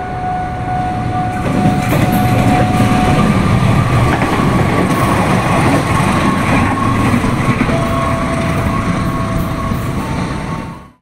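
Indonesian Railways CC206 (GE CM20EMP) diesel-electric locomotive running past on the rails, its diesel engine and wheels loud and steady with a thin whine above them. The sound fades out near the end.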